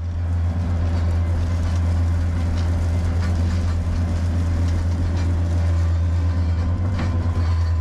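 Bobcat skid-steer loader's diesel engine running steadily at high idle, heard from inside the cab as a loud, even hum. Gravel spills and rattles from the raised bucket onto the ground below.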